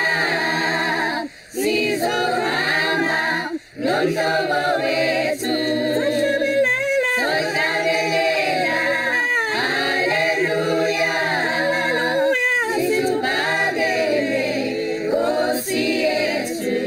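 Choir singing a cappella, several voices in harmony, with two short breaks in the singing during the first four seconds.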